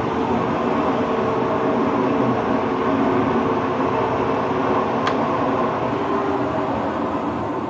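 Machinery running steadily: an even mechanical hum with a few held tones under a noisy rush. A single sharp click comes about five seconds in.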